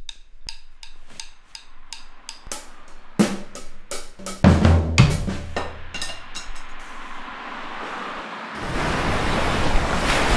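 Drum kit being played with wooden sticks: light, spaced stick strikes at first, then from about three seconds in heavier hits of kick drum and snare with ringing cymbals. Near the end the drumming gives way to a steady, rising rush of ocean surf.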